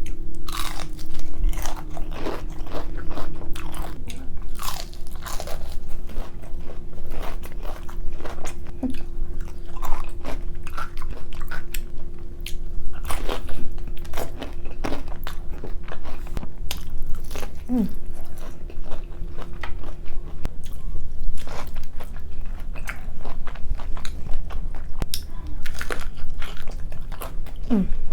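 A person eating seafood close to the microphone: irregular crunching bites and wet chewing.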